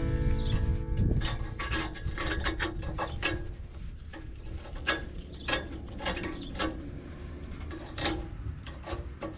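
A hand-held metal tool scraping and scratching at the rusty end of a car's exhaust pipe in irregular short strokes, clearing off the crumbled remains of the old flange donut seal so a new one can fit.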